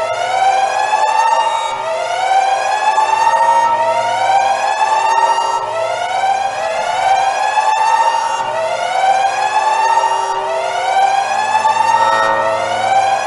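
Electronic emergency siren whooping: a rising, slightly arched tone that restarts abruptly about every two seconds, repeating steadily.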